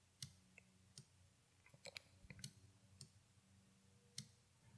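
Near silence broken by about eight faint, sharp, irregular clicks from working a computer while dragging audio clips in an editor.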